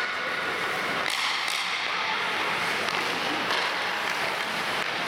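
Ice hockey play in a rink: a steady hiss of skates scraping the ice, with a couple of sharp knocks of sticks or puck.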